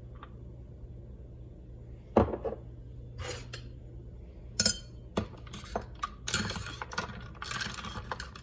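Hard objects being handled: a series of sharp knocks and clinks, sparse at first and more frequent in the second half, over a steady low hum.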